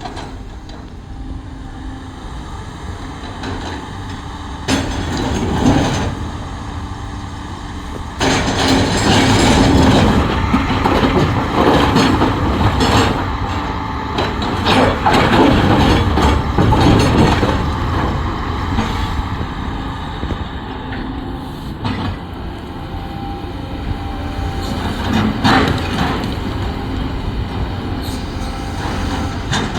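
A Caterpillar heavy machine's diesel engine running under load, with repeated clanks and clatter that grow louder about a third of the way in.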